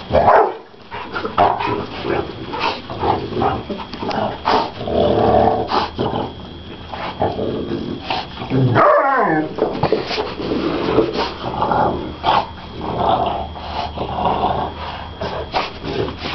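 Several dogs play-wrestling, growling continuously with many short barks and yips, and one longer pitched yelp about nine seconds in.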